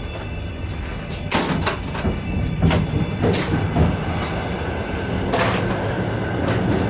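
Inside a moving Russian passenger train carriage: a steady low rumble with irregular sharp clanks and knocks, the clatter of the wheels and the carriage's fittings rattling.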